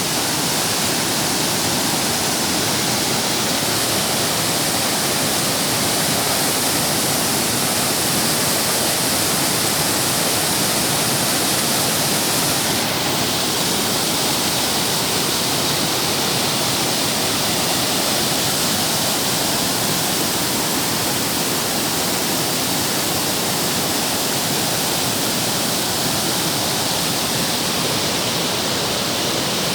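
Steady rush of falling water, like a waterfall or rapids, a constant even roar without change.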